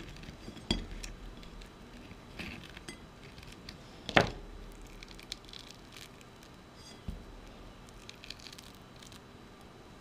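A knife clinking and scraping against a porcelain plate as soft, skinned nectarines are cut open and their stones pulled out, with faint wet squishing of the fruit. A few scattered knocks, the sharpest about four seconds in.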